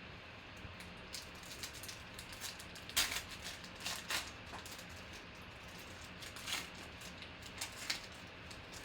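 Trading cards being handled and flipped through by hand: an irregular scatter of soft clicks and flicks, the sharpest about three and four seconds in.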